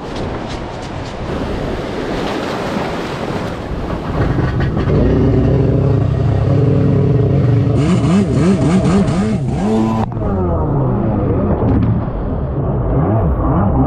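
Stand-up jet ski engine revving hard as the ski rides out through breaking surf. The engine comes up over a wash of surf noise about four seconds in. Its pitch climbs and wavers sharply as the ski bounces through the whitewater, then cuts out abruptly for a moment near ten seconds as spray hits, and carries on.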